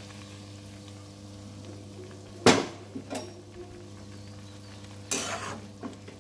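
Metal spatula scraping and knocking against a black iron kadai as a simmering curry is stirred. There is a sharp scrape about two and a half seconds in, a lighter knock just after, and a longer scrape near the end.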